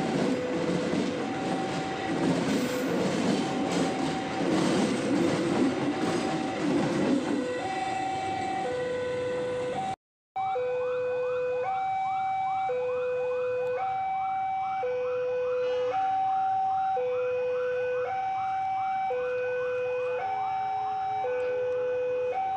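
Electronic level-crossing alarm alternating between a high and a low tone, about a second each, over the rumble and clatter of a passenger train's coaches passing. After a sudden cut about ten seconds in, the train noise is gone. The two-tone alarm carries on with a quick, repeating rising chirp over it.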